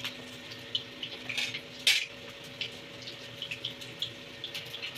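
Whole boiled eggs deep-frying in hot oil in a kadhai, the oil sizzling with scattered crackles and one louder pop about two seconds in.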